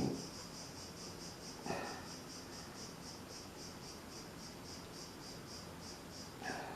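A cricket chirping steadily, about three chirps a second, with two short faint scrapes or knocks, one nearly two seconds in and one near the end.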